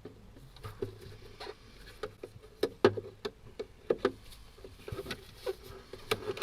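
Plastic clicks and creaks from a BMW X5's door card as it is prised away from the door, its trim clips letting go one by one. The clicks come at an irregular pace, some sharp, some faint.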